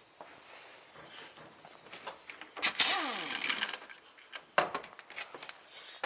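A power tool undoing gearbox studs, whirring in a short burst about three seconds in and then winding down in pitch. Scattered metallic clicks and knocks follow.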